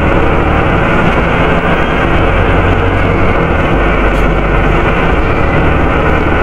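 Volvo B7RLE bus's engine cooling fan running loudly inside the cabin: a steady rush over the engine's low hum, with a faint steady whine.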